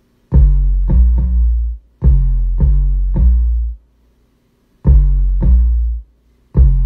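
808 bass playing a short melodic line: deep, sustained notes at changing pitches, each with a sharp attack, in phrases of two or three notes separated by short silences.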